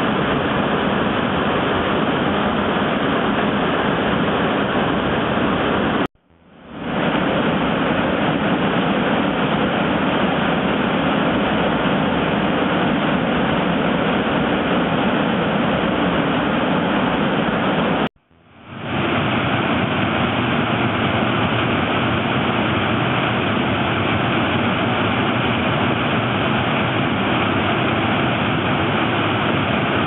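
Ryujin Falls (竜神の滝) pouring into its plunge pool: a loud, steady rush of falling water. It cuts out abruptly twice, about 6 and 18 seconds in, and fades back up within a second each time.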